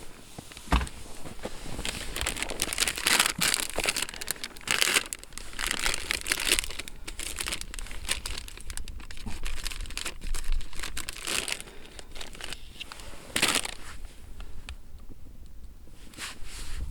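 Crinkly material such as plastic packaging or a nylon bag being handled, crinkling and rustling in irregular bursts, with a sharp knock about a second in.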